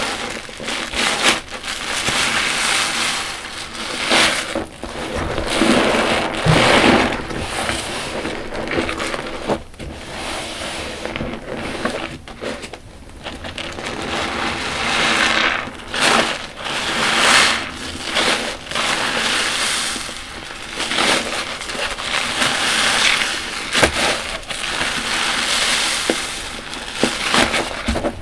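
Yellow car wash sponges soaked in soapy water, squeezed and pressed by hand in a tub of foam: repeated wet squelches, each swelling and fading every second or two.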